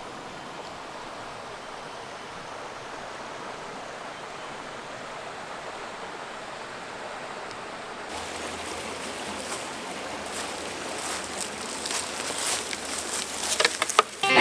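Creek water running steadily. From about eight seconds in it grows a little louder, with many small splashy crackles.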